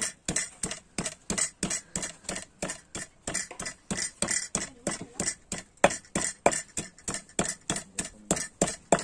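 A knife chopping on a cutting board in quick, even strokes, about four a second, as raw ingredients for a colo-colo sambal are cut.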